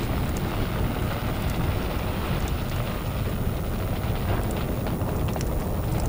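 Large fire burning: a steady low rushing noise with scattered faint crackles.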